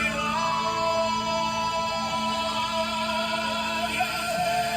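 Spanish-language Christian worship song playing as background music.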